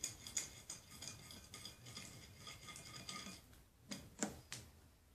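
Faint clicking and light scraping of a utensil against a plate, stirring soap and salt together into slime. A few sharper clicks come near the end.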